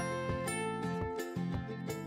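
Background music: melodic notes over a steady, regular beat.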